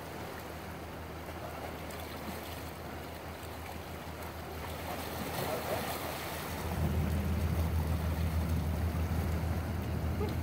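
Sea washing against shoreline rocks, with wind on the microphone. A low rumble grows louder about two-thirds of the way through.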